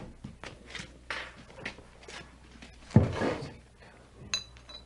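Sound-effect foley of beer being served: a thump about three seconds in, then glass beer bottles clinking near the end with short bright rings.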